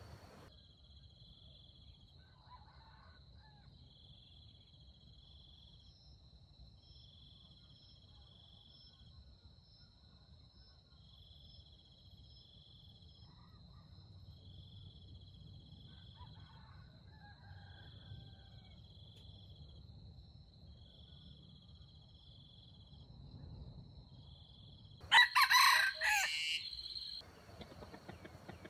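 A red junglefowl rooster crows once near the end, short and loud. Underneath, insects keep up a steady high whine with regular chirps every second or two.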